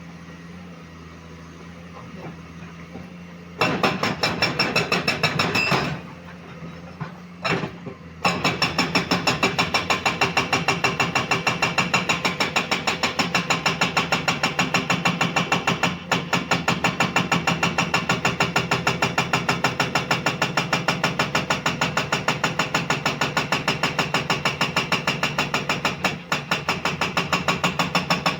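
Komatsu PC210 excavator: the engine runs low and steady, then a fast, even series of loud metallic blows starts about three seconds in. The blows stop and start again briefly, then keep going without a break from about eight seconds in.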